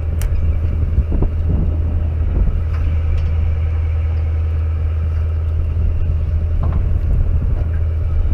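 Fishing boat's engine running with a steady low drone, with a few light knocks over it.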